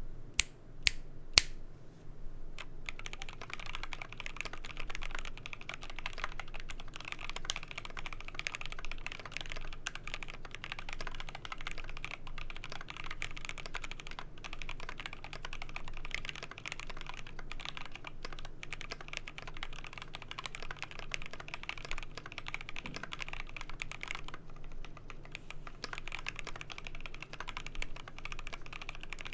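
Typing on a GMMK Pro keyboard with lubed Gateron Ink Black linear switches on a polycarbonate plate with switch films and DCP keycaps. A few single loud keystrokes in the first second and a half, then steady fast typing, thinning briefly about 24 seconds in.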